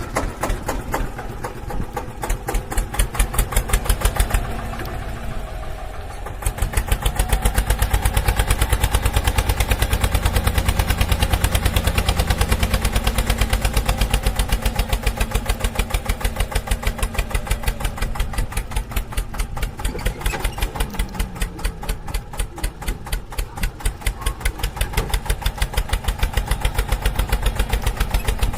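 Eicher tractor's diesel engine running with an even, pulsing exhaust beat. It gets louder about six seconds in and holds there.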